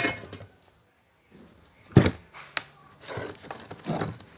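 Handling knocks on a wooden board as a battery, bulb and wires are moved about: a sharp knock at the start, a louder one about two seconds in with a click after it, then about a second of scraping and clatter.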